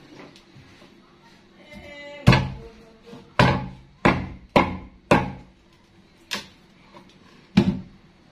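Kitchen knife chopping down hard on a cutting board: about seven separate heavy chops at an uneven pace, each with a short ringing knock.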